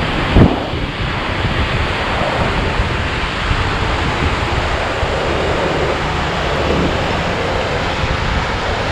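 Ocean surf breaking steadily on a rocky shore, a loud even wash, with wind buffeting the microphone. There is a short thump about half a second in.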